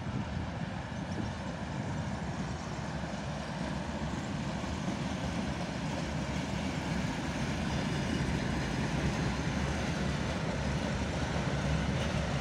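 Diesel shunting locomotive pulling a rake of ballast hopper wagons slowly past: engine running and wagon wheels rolling on the rails, growing a little louder towards the end.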